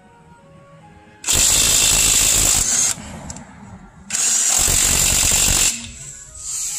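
Cordless 1/2-inch-drive impact wrench, rated 800 Nm, hammering on a car's wheel lug nut in two bursts of about a second and a half each, then a short third burst near the end.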